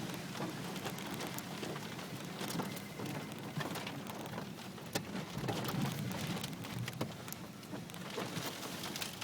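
Steady rain during a severe thunderstorm, with many sharp ticks of individual drops striking.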